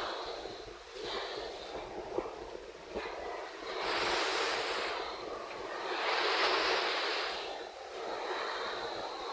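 Wind and sea waves, the rushing noise swelling and easing every two to three seconds, with a couple of light knocks about two and three seconds in.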